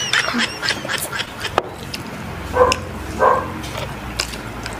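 An animal's short, hoarse calls, twice a little past the middle, after a few high squeaky cries at the start, over small clicks from eating at the table.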